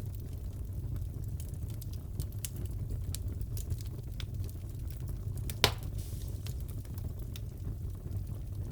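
Wood fire crackling in a fireplace: a steady low rumble of the flames with scattered small snaps and one sharp, louder pop a little past halfway.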